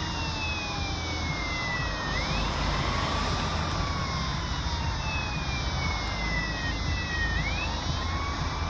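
Two emergency-vehicle sirens wailing at once: one rising and falling slowly in pitch, the other falling slowly and then sweeping quickly back up, about every five seconds. A steady low traffic rumble runs underneath.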